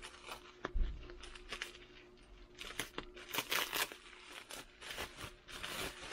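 Bubble wrap crinkling and crackling as a small packet is pulled open by hand, in a run of irregular crackles that are thickest about halfway through. A dull bump sounds about a second in.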